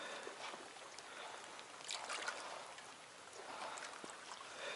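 Small waves lapping faintly at a stony lakeshore, a soft wash about every two seconds over a steady low hiss.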